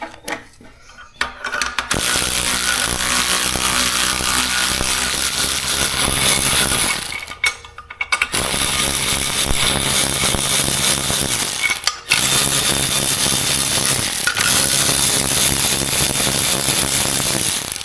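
A power tool's motor running steadily at a high, even pitch, breaking off abruptly twice.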